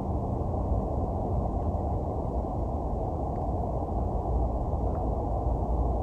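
Steady low rumbling background noise outdoors, with no clear event in it, and a couple of faint short high sounds about three and five seconds in.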